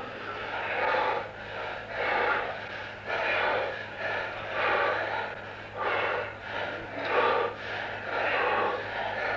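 Heavy, rhythmic breathing: quick, noisy breaths a little more often than once a second, over a steady low hum.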